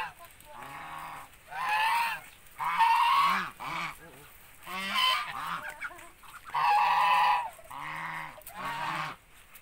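Ducks giving a string of loud, harsh, honking distress calls, roughly one a second, as a white duck is held upside down by its legs, with softer low calls in between.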